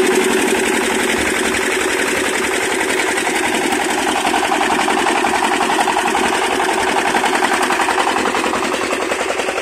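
Single-cylinder diesel engine of a công nông farm tractor driving a rice thresher, running steadily with a fast, even pulse.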